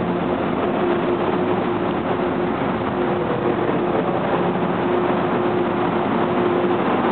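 MTR Kwun Tong Line metro train pulling into a station platform: steady rolling noise of the wheels on the rails, with a steady hum running through it.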